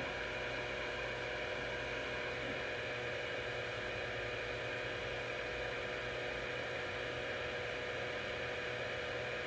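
Heat gun running with a steady whir and hum, blowing hot air to soften a tobacco pipe stem's tenon so it can be stretched.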